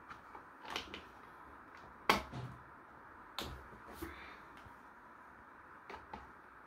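Scattered sharp clicks and light knocks of plastic trim covers being handled and fitted onto a gaming chair's seat mechanism, the loudest about two seconds in.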